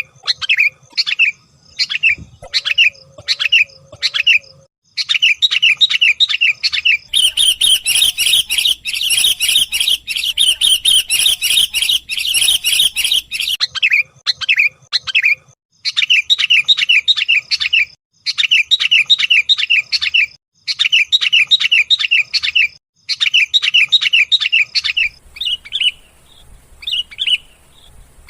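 Sooty-headed bulbul calling: rapid series of short, sharp chirping notes in runs of a few seconds separated by brief pauses, with a denser, louder stretch of chatter in the middle. This is the call used as a lure to draw in and trigger wild or reluctant bulbuls to sing.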